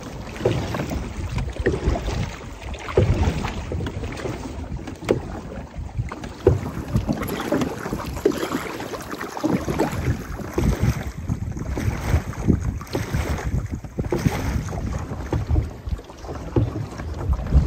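Wooden paddles of a large voyageur canoe crew dipping and pulling through the water in repeated strokes, with water swishing along the hull. Wind rumbles on the microphone.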